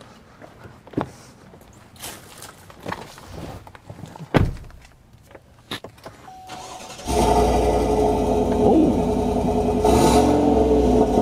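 Chevrolet Silverado Trail Boss's 5.3-litre V8 starting about seven seconds in and settling into a steady idle. Before it, a few scattered clicks and knocks.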